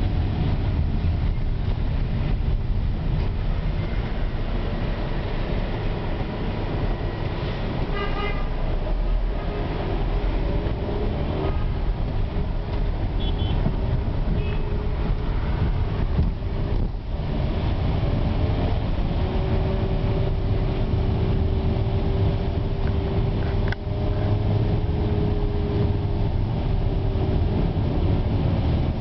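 Engine and tyre rumble from inside a car driving on a rain-wet city street, with short car-horn toots from the surrounding traffic now and then.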